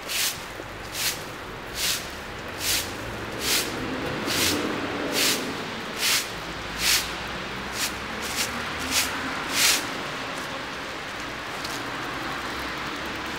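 Twig broom sweeping wet leaves and grit on a paved sidewalk: regular scraping swishes a little more often than once a second, stopping about ten seconds in.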